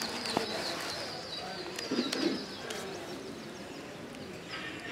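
A bird calling in a fast run of short, high, falling chirps, several a second, which stops about halfway through.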